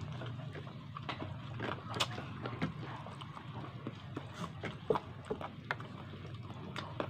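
Close-up eating sounds of chicken feet adobo being chewed and sucked off the bone: wet lip smacks and small sharp clicks at irregular intervals, over a steady low hum.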